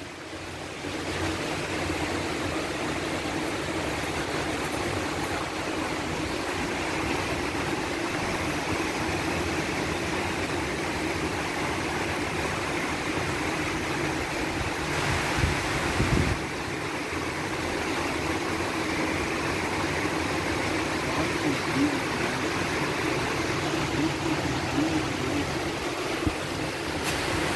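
Heavy storm rain pouring down steadily, a dense, even hiss that briefly swells louder about fifteen seconds in.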